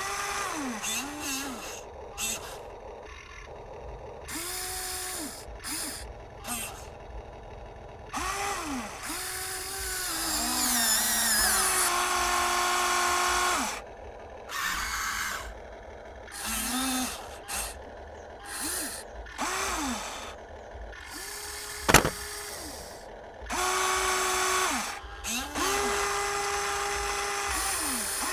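Small electric gear motors of Huina radio-controlled construction toys whining in short stop-start runs, each rising in pitch as it spins up, holding, then falling as it stops. A sharp click about three-quarters of the way through.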